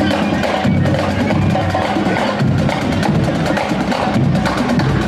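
Loud music carried by busy, rapid percussion hits.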